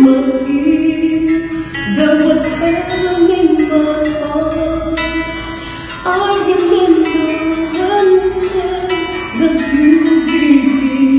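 A man singing a slow song in long held notes, over acoustic guitar accompaniment.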